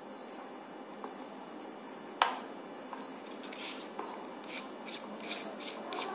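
Hands handling a lavalier microphone's plastic battery housing and cable: a sharp click about two seconds in, then a run of small scratchy clicks and rubs.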